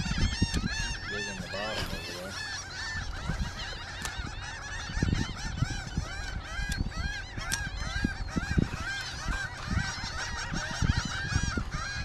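A large flock of seagulls calling over one another throughout, many short cries that rise and fall in pitch, with low, uneven buffeting noise underneath.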